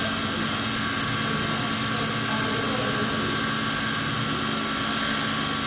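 Two-spindle CNC drilling machine running steadily, its spindles giving a steady high whine over a constant mechanical hum.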